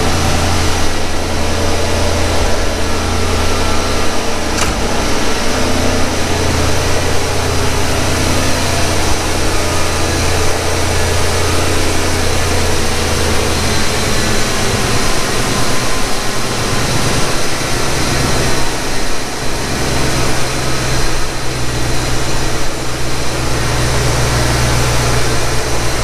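1991 Ford Mustang GT's 5.0-litre V8 idling steadily on a cold start. Its throttle body and idle air bypass have just been cleaned and fitted with new gaskets to cure a hunting idle.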